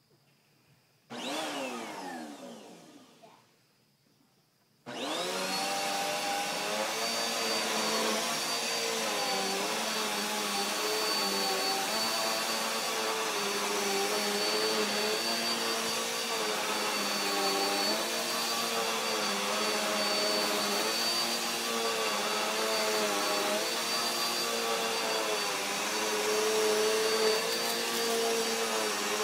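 A red Dirt Devil bagless upright vacuum cleaner is switched on about a second in and off again at once, its motor winding down with a falling whine. About five seconds in it starts again and runs steadily, with a high whine over the motor hum, the motor note wavering slightly as it is worked over the carpet.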